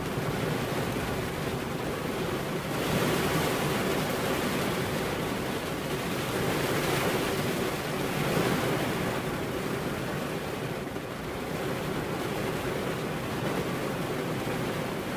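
Steady heavy rain: a dense, even hiss that swells slightly a few seconds in and again about halfway through.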